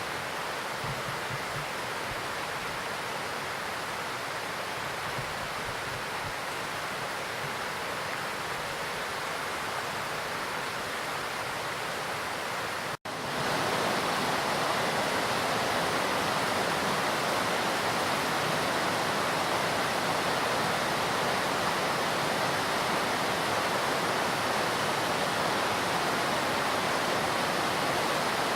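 Hakusen waterfall: a steady, even rush of falling water. About halfway through it cuts out for an instant and comes back louder.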